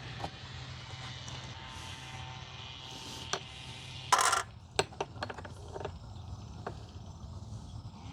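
Small parts and tools being handled at a workbench: scattered light clicks and clinks, with one short louder scrape about four seconds in, over a steady low hum.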